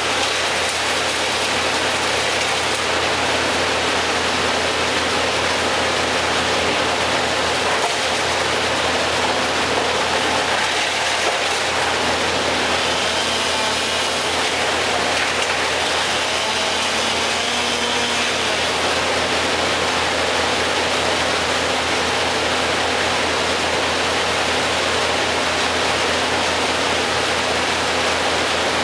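An engine running steadily under a constant rushing noise, with no distinct strikes or revs.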